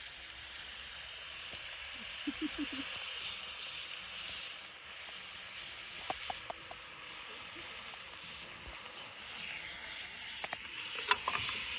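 Food sizzling steadily in a hot pan, with a few light clicks of a utensil against it.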